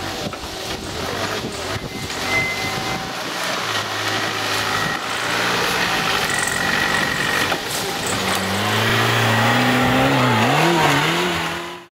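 Off-road vehicle engine running under load over rough ground, revving up over the last few seconds with its note rising and wavering, then cutting off suddenly.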